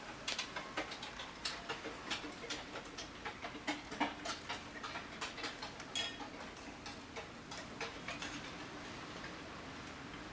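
Irregular small clicks and taps of hand tools working on a circuit board while a jumper wire is fitted in place of a burnt trace. The clicks come several a second at uneven spacing and stop about two seconds before the end.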